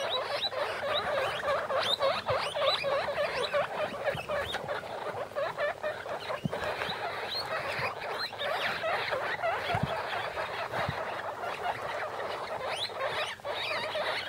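A litter of 15-day-old guinea pig pups making many short, high squeaks that overlap in a busy, steady stream.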